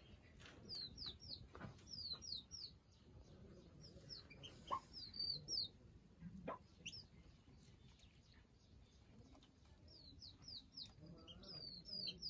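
Baby chicks peeping: faint, quick falling peeps in runs of three or four, sparser in the middle and picking up again near the end.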